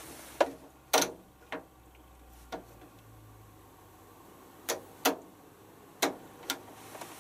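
A Hotpoint Futura HF8B593 washing machine's plastic control dial clicking through its settings: about eight sharp, separate clicks at uneven spacing over a faint low hum.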